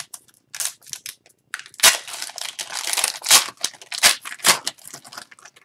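Crinkly plastic rustling and scraping as a trading card is handled in a clear plastic sleeve, in a run of short strokes that is densest in the middle.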